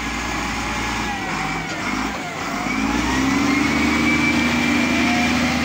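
XCMG wheel loader's diesel engine running under load close by, revving up about three seconds in and holding the higher speed.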